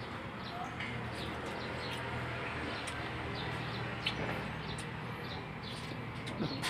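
Small birds chirping on and off in the background, short high calls scattered several times a second, over a steady low hum.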